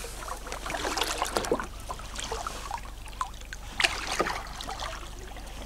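Kayak paddle strokes in calm water: splashes and dripping as the blade dips and lifts, with two louder strokes about a second in and just before four seconds.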